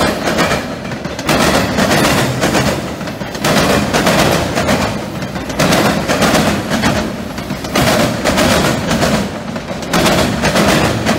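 Freight train of autorack cars rolling over a railroad diamond crossing, its steel wheels banging on the crossing frogs in repeated groups of clattering bangs about every one and a half seconds.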